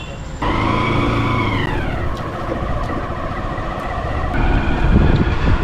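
Motor vehicle engine running on a hill road, a whine that starts about half a second in, drops in pitch about two seconds in, then holds steady and grows louder about four seconds in.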